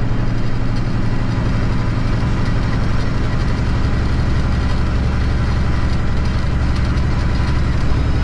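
Diesel engine of an International ProStar semi truck running steadily under way, heard from inside the cab with road noise; its note shifts lower about four seconds in.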